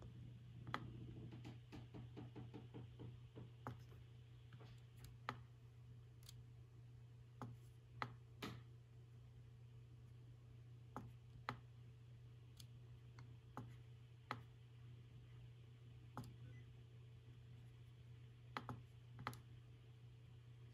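Irregular sharp single clicks from operating a laptop while a 3D model is navigated on screen, about one every second or two, with a run of softer quick clicks in the first few seconds. A steady low hum sits underneath.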